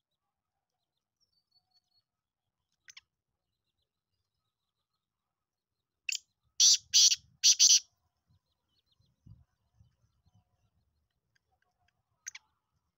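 Black francolin calling: a short lead note, then a loud phrase of four quick notes about six seconds in. Single short notes come once before it and once near the end.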